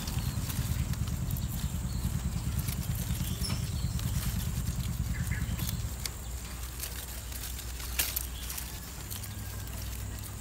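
Light rustling and small clicks of bonsai twigs and wire being handled, with one sharper click about eight seconds in, over a low rumble that eases about six seconds in.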